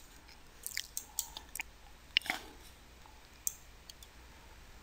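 A few faint, scattered clicks over quiet room tone.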